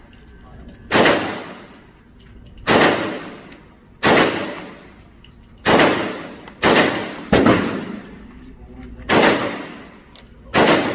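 Eight gunshots fired singly at a steady, unhurried pace, each loud crack trailing off in a short echo, with two coming close together about seven seconds in.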